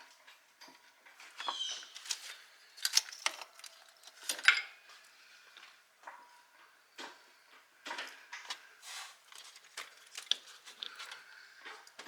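Irregular light metallic clinks, clicks and knocks of small hard objects being handled, the loudest about four and a half seconds in.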